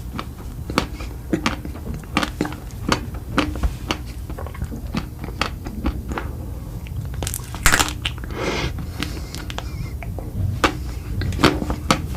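Close-up crunchy chewing: a steady run of crisp crunches and mouth clicks, about two a second, with a longer, louder noisy rustle about seven seconds in.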